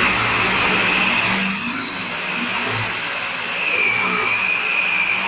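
Handheld power tool running steadily and grinding old filler and tough primer off an aluminum door skin to bare metal. It starts right at the beginning, and its pitch wanders a little as it bears on the panel.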